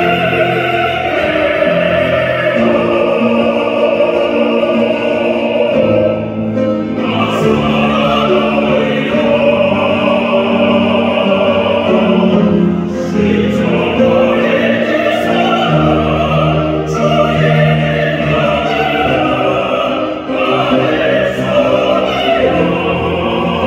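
A mixed vocal quartet singing a sacred song in four-part harmony, with short breaks between phrases.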